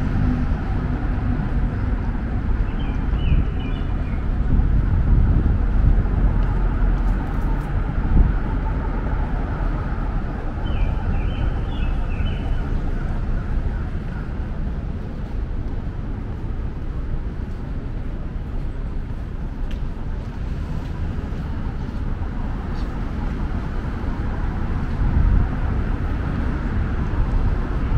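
Passing road traffic on a city street, a steady low rumble of engines and tyres that swells and eases as vehicles go by. A bird gives short bursts of chirps twice, a few seconds in and again about eleven seconds in.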